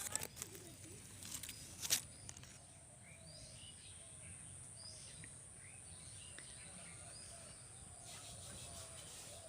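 Scattered short bird chirps over outdoor background noise, with a steady high-pitched whine underneath. A few sharp clicks come in the first two seconds.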